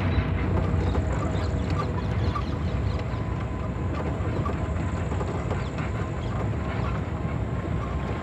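Vehicle driving along a rough dirt track: a steady low rumble of engine and tyres with many small rattles and knocks from the bodywork.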